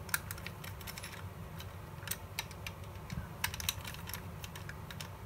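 Small screws being tightened by hand with a precision screwdriver into a metal part of a model kit: faint, irregular light clicks and ticks from the driver tip and the parts.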